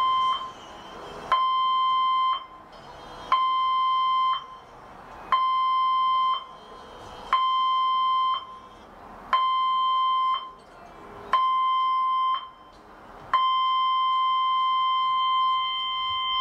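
Cruise ship's general emergency alarm: a steady electronic tone sounded in seven short blasts of about a second each, a second apart, then one long blast of about four seconds near the end, the seven-short-one-long general emergency signal.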